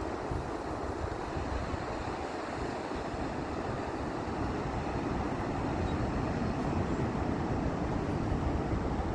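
Ocean waves washing steadily, with wind buffeting the microphone in a low, uneven rumble.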